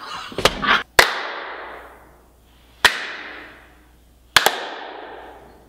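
Sharp hand slaps of high-fives, about a second and a half apart, the third one doubled, each echoing and fading over a second or so in a bare room.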